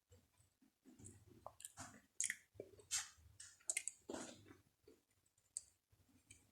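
Close-miked chewing of uphuthu, crumbly dry maize-meal pap, moistened with amasi sour milk: wet mouth clicks, smacks and squishes in a quick irregular run that dies away near the end.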